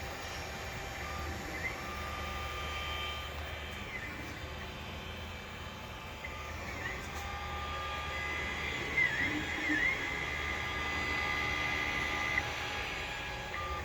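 3D printer running: its stepper motors give steady tones that jump and glide in pitch as the print head moves and changes direction, over a low hum. A higher tone holds for a few seconds past the middle.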